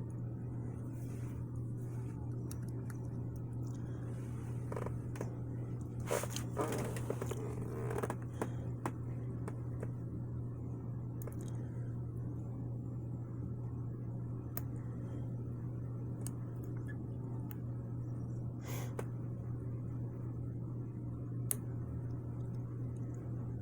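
Faint scrapes and light clicks of a lock pick and tension wrench working the pins inside an antique Ilco padlock's keyway, with a short cluster of scraping about six to eight seconds in and a few single ticks later. A steady low hum runs underneath.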